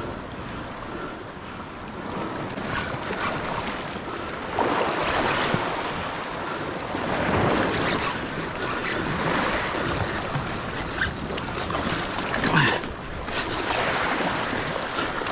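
Sea waves surging and washing over a rocky reef ledge, swelling every few seconds, with wind on the microphone.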